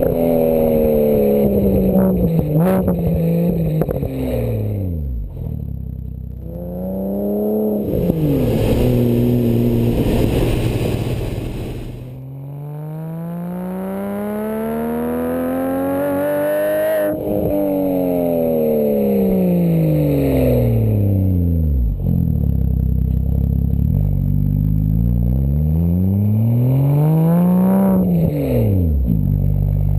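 First-generation Porsche Cayman's flat-six heard close to the tailpipes through a GMG World Challenge cat-back sport exhaust, the car driving on the road. The engine note climbs and falls over and over as the car accelerates and backs off, with one long climb ending in a sudden break a little past halfway.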